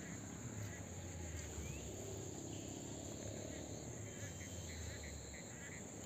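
Steady high-pitched chorus of crickets, with a few short chirps and a low steady rumble underneath.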